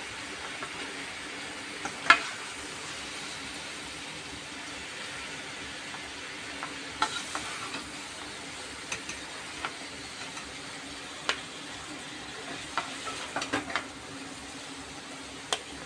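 Fried jackfruit pieces sizzling in oil in a steel kadhai while a metal spatula scrapes and knocks against the pan, scooping them out. There is a sharp clink about two seconds in, then scattered clinks through the second half.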